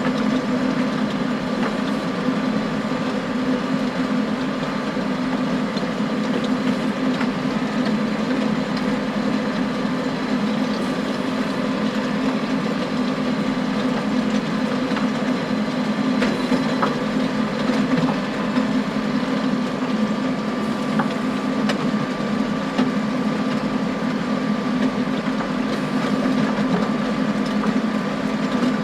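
John Deere tractor engine running steadily under load while pulling a power harrow, with the harrow's rotating tines working the wet ground. A few faint clicks come through over the drone, likely stones knocking on the tines.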